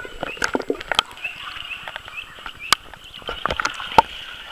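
Swimming-pool water sloshing and lapping against a waterproof camera held at the surface, with scattered sharp clicks and small splashes.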